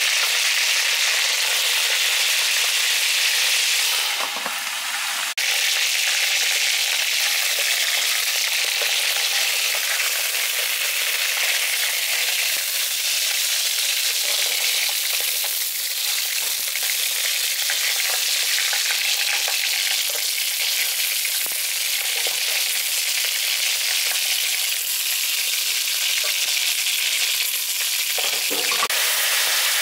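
Whole chicken sizzling in hot pig fat in a steel pot, a steady dense hiss, with occasional sharp clicks as it is turned with metal tongs.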